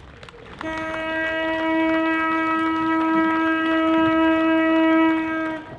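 Boat horn sounding one long blast on a single steady note, starting suddenly and cutting off after about five seconds.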